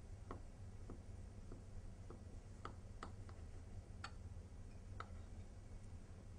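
About ten light, irregularly spaced clicks of a small knife against a ceramic plate as it cuts down through a block of almond-paste dahriss, over a steady low hum.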